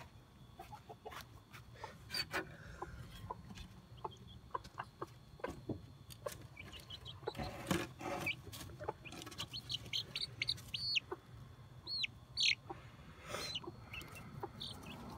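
Chickens in a wooden nest box clucking and giving short, high squawks, mostly in the second half, as they are handled, over scattered knocks and rustling in the wood shavings.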